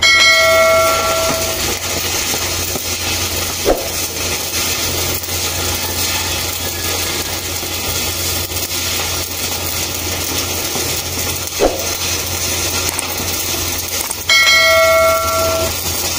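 A bell-like chime rings twice, for about a second and a half at the start and again near the end, over a steady hiss with a low hum. Two short falling sweeps come in between.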